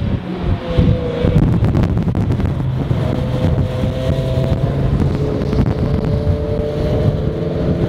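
Two Porsche 911 GT3 RS cars with naturally aspirated flat-six engines running at a steady, moderate pitch as they drive close past one after the other.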